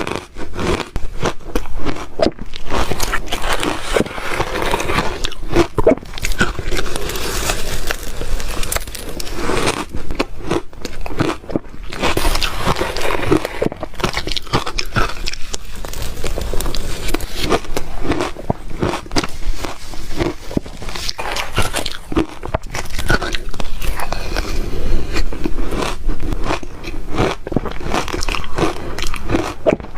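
A person biting and chewing ice close to the microphone: a dense, irregular run of loud cracks and crunches, with short pauses between mouthfuls.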